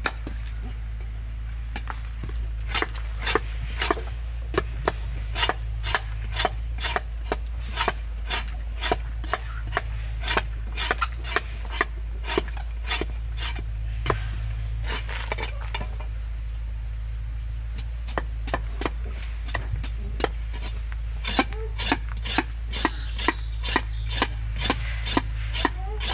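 Cleaver chopping cassava roots on a wooden block, steady repeated strikes about two a second that hack the peel off, with a few sparser stretches in the middle.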